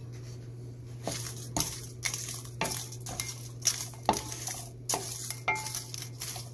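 Wooden spatula stirring and scraping sliced onions, ginger and dried red chillies in oil in a pan, about two strokes a second starting about a second in, over a steady low hum.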